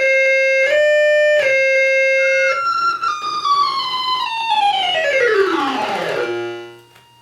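Dubreq Stylophone 350S synthesizer playing a buzzy, reedy tone. It steps between a few held notes, then slides steadily down in pitch over about three seconds into a low buzz that fades out near the end.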